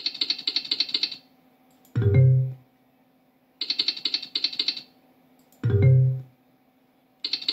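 Video slot machine sound effects: a rapid run of clicks as the reels spin, then a short low tone as they stop, twice over, with a third clicking spin starting near the end.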